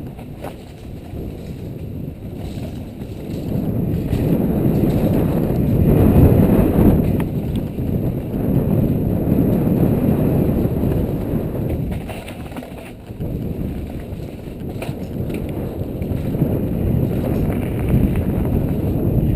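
Downhill mountain bike descending a dirt and gravel trail: wind buffeting the camera microphone over the low rumble and rattle of the tyres and bike, swelling and easing, with a few sharp knocks from bumps.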